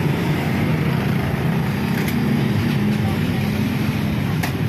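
Steady low engine rumble of street traffic, with indistinct voices under it and a few faint clicks.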